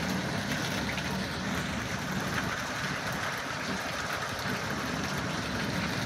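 Small hailstones and rain falling steadily onto parked cars, roofs and the hail-covered ground: an even hiss of countless tiny impacts as the hailstorm begins to ease.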